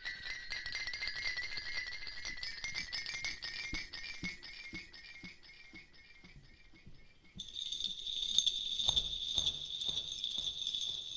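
Music: high sustained electronic tones over a fast, jingling, rattling pulse, switching to a different high tone about seven seconds in.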